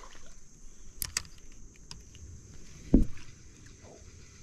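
Steady insect chirring, with a couple of sharp clicks about a second in and a single loud, dull thump about three seconds in.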